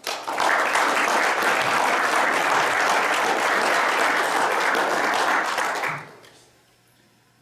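Audience applauding, a dense clapping that starts at once and dies away about six seconds in.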